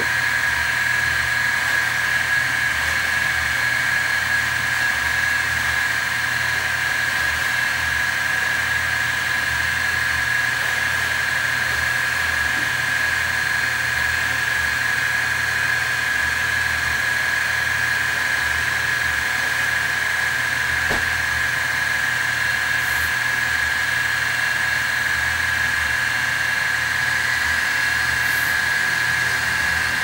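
CNC-converted mini mill running its spindle with a steady high whine while the end mill cuts slowly into a metal plate.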